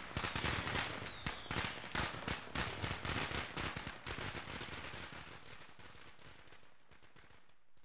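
A rapid, irregular string of firecrackers popping, many sharp cracks a second, that thins out and fades away near the end.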